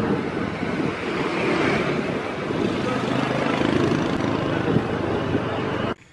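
Riding on a motor vehicle along a road: the engine running under a steady rush of wind on the microphone, cutting off abruptly near the end.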